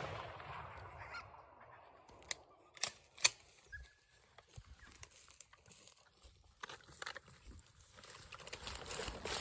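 The echo of a shotgun blast rolls away and fades over the first second. A few sharp clicks and knocks follow, and rustling grows near the end.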